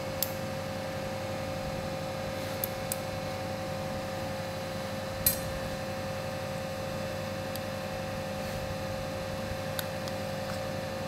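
Steady electrical hum of operating-theatre equipment with a constant mid-pitched tone, broken by a few sharp metallic clicks of surgical instruments, the loudest about five seconds in.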